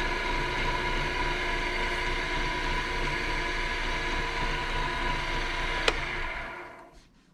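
Wood lathe running steadily with a pen blank spinning between centres. Near the end there is a sharp click, and the motor winds down to near silence.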